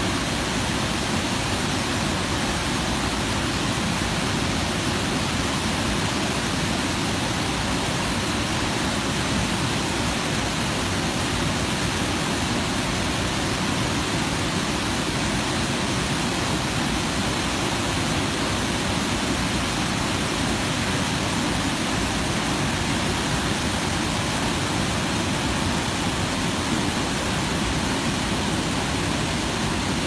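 Waterfall: falling water making a steady, unbroken rushing noise that holds the same level throughout.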